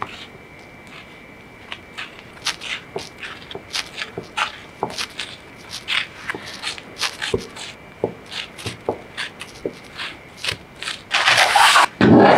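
A long knife blade pressed down through a sheet of potato dough onto a wooden cutting board, cutting it into strips: a string of soft, irregular taps, two or three a second. Near the end, a burst of louder rustling noise and then a heavy thump.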